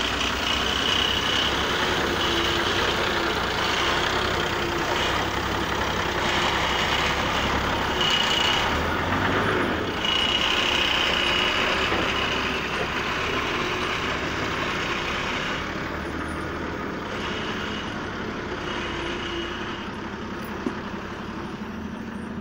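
FAP 1620 truck's diesel engine running while its hydraulic timber crane loads logs, a high hydraulic whine coming and going in stretches of a second or two. Over the last several seconds the sound fades as the truck pulls away.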